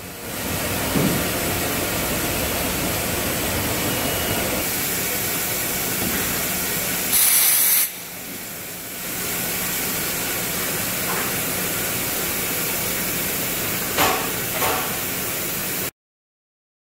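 Rail edge brushing machine running with a steady mechanical noise. About seven seconds in comes a loud burst of compressed-air hiss from the pneumatic air clamp valves, lasting under a second. Two sharp clicks come near the end, then the sound cuts off suddenly.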